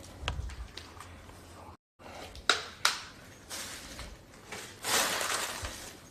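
Two sharp knocks followed by bursts of crunching, rustling noise, with the sound cutting out completely for a moment just before that.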